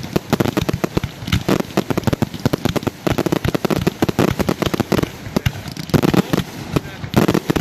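Fireworks finale: a dense, rapid barrage of bangs, many a second with no break.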